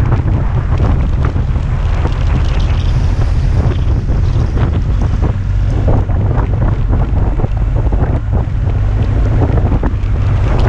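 Heavy wind noise on the microphone of a camera on a moving motorcycle: a steady low rumble with gusts through it.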